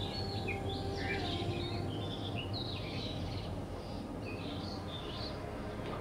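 Small birds chirping and twittering in a continuous background chorus, many short calls overlapping, over a faint steady hum.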